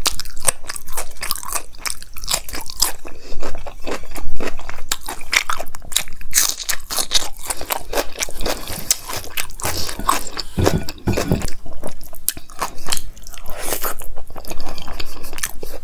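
Close-miked eating sounds: food being bitten and chewed with dense, crisp crunching and crackling.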